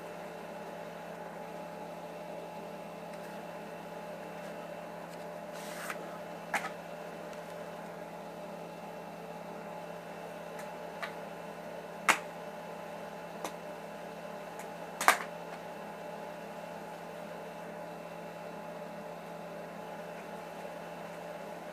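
Steady electrical hum made of several held tones, with a few sharp clicks: a pair about six seconds in and louder single ones at about twelve and fifteen seconds.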